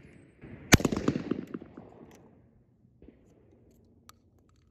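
A single shot from a Stoeger Condor Field 12-gauge over-under shotgun, about a second in, its report dying away over the next second or two. A faint click near the end.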